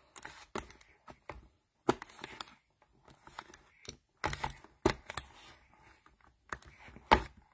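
Plastic makeup products, lip gloss tubes among them, being rummaged through: irregular small clicks and knocks, a few louder ones about two, four to five and seven seconds in.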